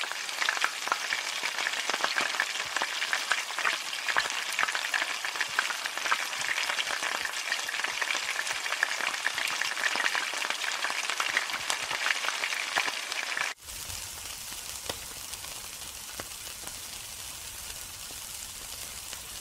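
Food frying in hot oil in a wok: a loud, dense sizzle full of crackling pops. About 13 seconds in it cuts suddenly to a quieter, steadier sizzle over a low hum, as of meat skewers grilling.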